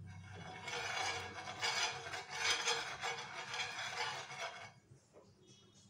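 Steel spoon rubbing and scraping across a nonstick dosa pan in repeated strokes, spreading a little oil; it stops near the end.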